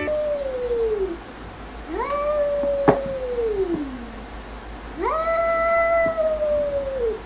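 Domestic cat giving three long, drawn-out meows. The second and third rise, hold, then fall in pitch. There is a short click about three seconds in.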